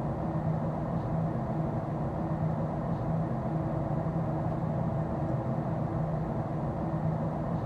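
Steady cabin drone of a Boeing 777-200ER in cruise: engine and airflow noise with a low steady hum.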